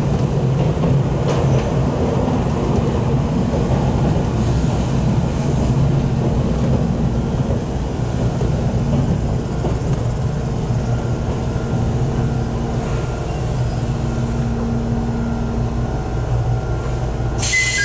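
Jomo Electric Railway 700 series electric train (ex-Keio 3000 series) running along the line, heard from inside the car: a steady rumble of wheels on rail with a low motor hum. Right at the end a brighter hiss and a high steady tone come in.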